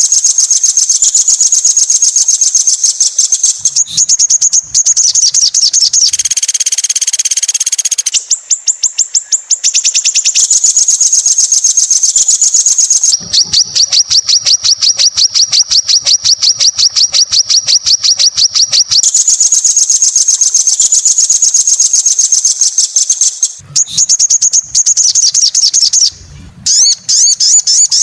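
Recorded songbird song of the Indonesian 'tembakan' kind: long, fast rolls of sharp, high repeated notes strung into near-continuous trills, broken by short gaps. A brief buzzier phrase comes about six seconds in.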